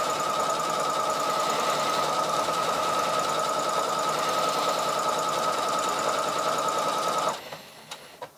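Singer Heavy Duty 6800C sewing machine running at high speed as it stitches a programmed sequence of outline alphabet letters, a steady whirring hum. It stops abruptly about seven seconds in, followed by a few light clicks.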